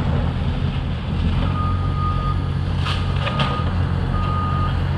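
Heavy diesel demolition machinery, a Caterpillar excavator among it, runs with a steady low rumble. A reversing alarm beeps three times, each beep held for more than half a second. A couple of sharp cracks of breaking debris come about three seconds in.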